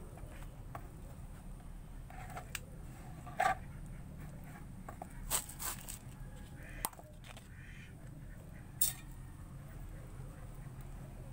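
Hands gripping and turning a whole pomelo on a tray: a handful of scattered short taps and rustles over a steady low hum.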